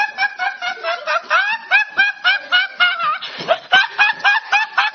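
A teenage boy laughing hard: a rapid, even string of short high-pitched laughs, about four or five a second, each rising in pitch. There is a brief breathy catch about three seconds in.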